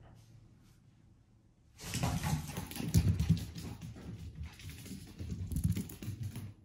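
Mameshiba puppy scampering on a wooden floor: a rapid patter of paws with knocks and rustling, starting suddenly about two seconds in and cutting off just before the end.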